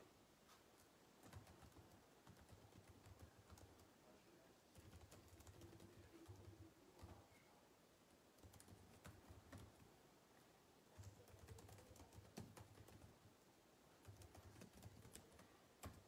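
Faint typing on a computer keyboard in several short runs of clicking keystrokes, with brief pauses between them.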